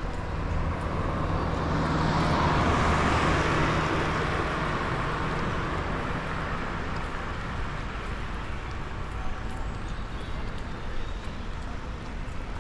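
A car passing on a wet road: its tyre hiss swells to a peak a few seconds in and then fades, over a low engine hum.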